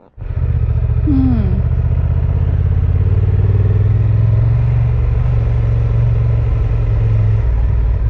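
Honda Transalp 750's parallel-twin motorcycle engine running steadily, starting up abruptly right at the start.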